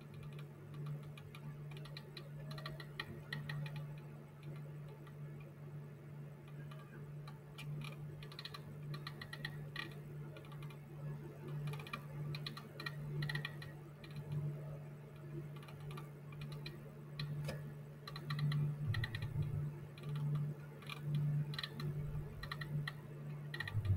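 Faint, irregular runs of small clicks from a computer mouse scroll wheel being turned, over a steady low hum.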